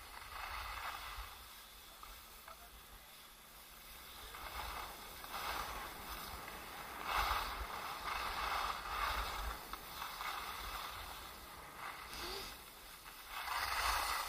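Skis sliding and scraping over packed piste snow, swishing in several swells as the skier turns. A low rumble of wind on the microphone runs underneath.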